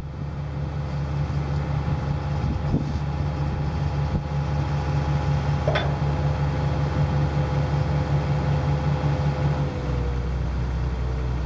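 Excavator diesel engine running steadily with a constant hydraulic whine, as the machine is worked to let the manual thumb swing down. There is a single short metallic click about six seconds in, and the engine note shifts lower near the end.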